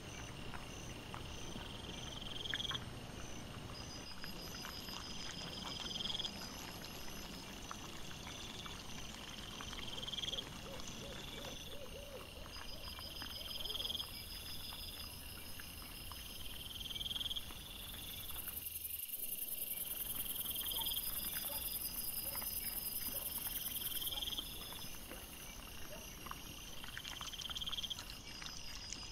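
Night chorus of insects, likely crickets or bush-crickets: a rising chirp repeats about once a second, with fainter, higher chirping behind it and a steady high trill for a few seconds past the middle. Scattered faint clicks and rustles run underneath.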